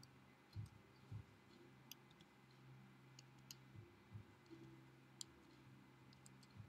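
Near silence: room tone with a faint steady low hum and scattered faint clicks and soft thumps.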